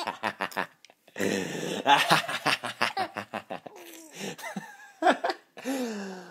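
Baby boy laughing in quick, breathy bursts of giggles. The longest burst comes about a second in, then the laughter dies down into short bits and a drawn-out falling voice sound near the end.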